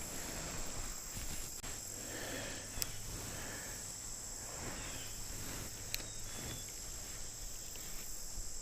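Insects chirping in a steady high-pitched chorus, with a few faint clicks.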